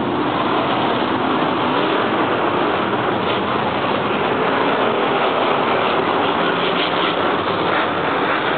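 Monster truck engines running loud and steady across the stadium, a continuous dense engine noise without a break.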